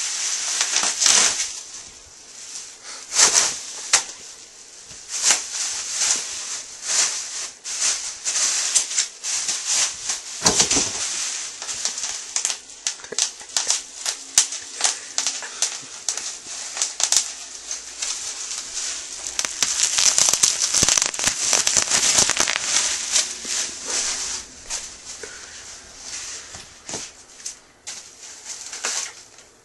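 Packaging crinkling and crackling as it is handled and pulled off new BMX parts, in irregular rustling swells with many sharp clicks.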